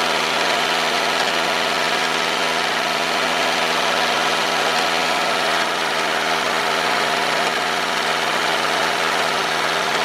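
Small motor running steadily, driving a model tractor's rotary brush sweeper: an even, unbroken mechanical hum.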